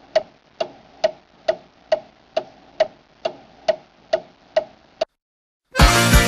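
Even, clock-like ticking, about two ticks a second, a dozen in all. It stops about five seconds in, and after a brief silence upbeat music with a steady beat starts near the end.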